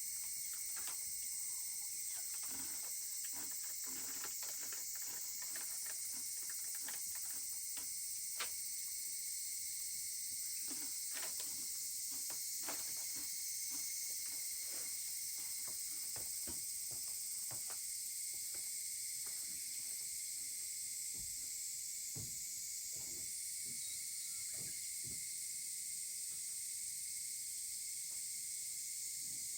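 Wood fire crackling, with many irregular sharp pops and snaps, over a steady high insect chorus.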